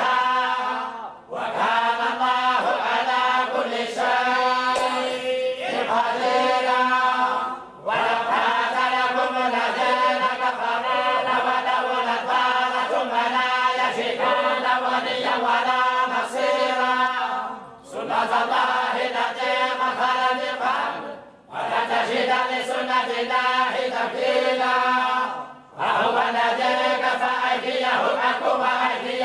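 A group of voices chanting the Qur'an in unison, in the Moroccan collective recitation style, on a steady reciting tone. Long phrases are broken by about five short pauses between verses.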